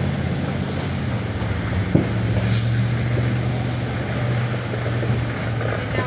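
Steady low engine hum with wind on the microphone, and one sharp pop about two seconds in.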